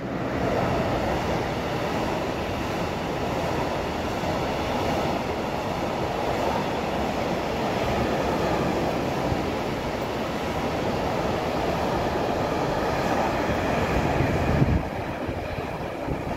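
Long intermodal freight train of container and tank-container wagons passing close by: the steady rumble and rattle of the wagons rolling over the track, dropping slightly near the end.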